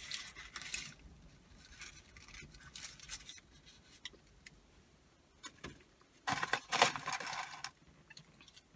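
Close-up eating sounds: chewing a McDonald's Quarter Pounder and handling its paper wrapper. The loudest part is a burst of crisp paper crinkling about six to seven and a half seconds in.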